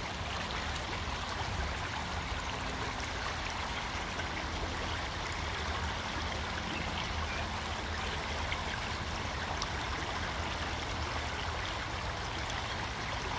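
Creek water flowing steadily over rocks.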